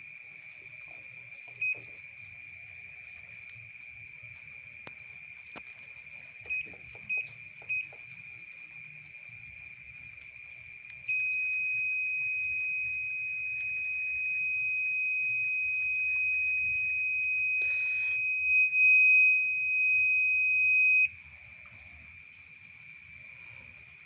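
Panasonic top-loading washing machine's control panel beeping: a few short key-press beeps, then about eleven seconds in a continuous high-pitched error beep held for about ten seconds before it cuts off. It is the alarm for error code E3, which the owner traces to a door switch that seems not to connect properly.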